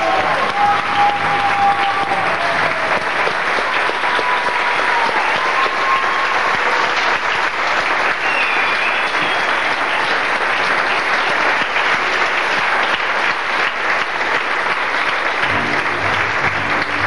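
Theatre audience applauding, a dense, steady clapping. The band's last held notes fade under it in the first couple of seconds, and music starts up again near the end.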